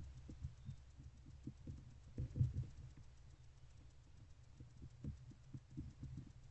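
Irregular low thuds and scuffs of barn owlets shifting their feet and tugging at a rat on the nest-box floor, heard through the box itself, with a cluster of louder knocks a couple of seconds in.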